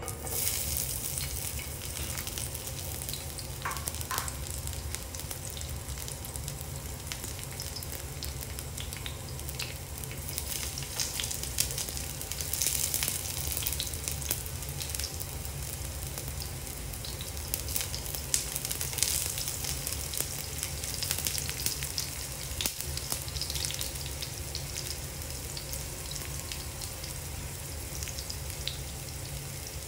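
Peeled garlic cloves sizzling and crackling in hot oil in a nonstick frying pan. The sizzle starts sharply as the cloves go in, then runs on steadily with louder crackling spells.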